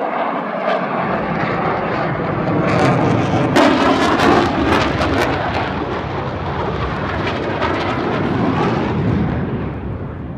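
Blue Angels F/A-18 Super Hornet jets flying past overhead, a loud jet rumble that builds, peaks with a crackling edge about four seconds in, and eases off near the end.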